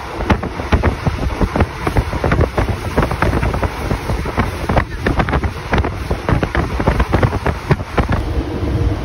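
Moving passenger train heard from its open carriage window: a steady low rumble with constant irregular knocking and rattling, and wind buffeting the microphone.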